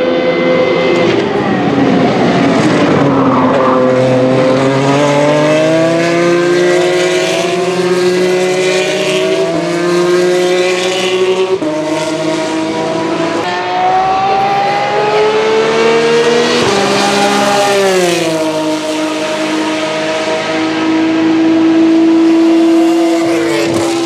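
Several open-wheel formula race cars' V6 engines running hard one after another, overlapping at times. The engine pitch drops steeply twice, as the cars brake and shift down, and climbs again as they accelerate away.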